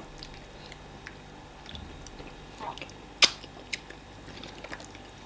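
Quiet eating sounds of fufu and egusi soup being eaten: soft chewing with small wet mouth clicks, and one sharp click a little past three seconds in.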